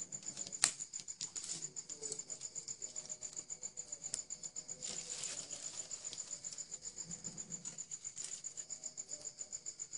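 An insect chirping steadily in a fast, even, high-pitched pulse, about six or seven pulses a second. There is one sharp knock about half a second in.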